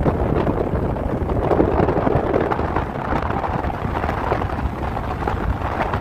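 Blizzard wind buffeting the microphone: a steady, low, noisy rush with no tone in it.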